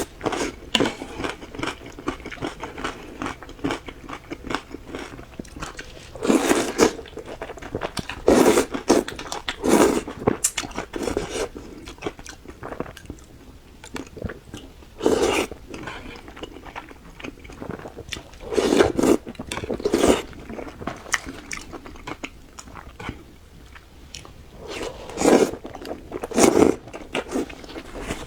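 Close-miked eating sounds of a person chewing and biting a meal of curry, steamed fish and rice: a steady run of small mouth clicks and smacks, with louder bites every few seconds.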